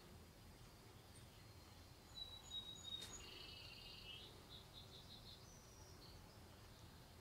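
Near silence: room tone, with a string of faint, high chirps between about two and five seconds in.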